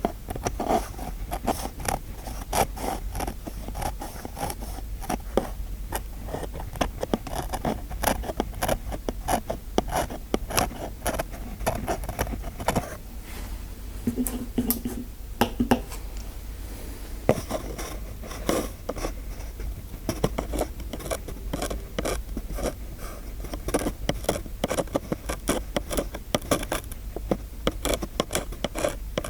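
Rapid close-miked scraping and small sharp clicks, many a second, as made for ASMR, with a short low hum about halfway through.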